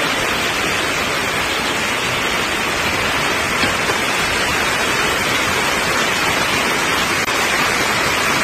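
Torrential rain and fast-flowing floodwater making a loud, steady rushing hiss that does not let up.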